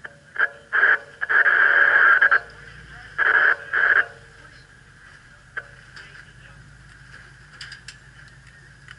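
Garbled two-way radio transmissions in several short, loud bursts over the first four seconds, with a steady low hum underneath.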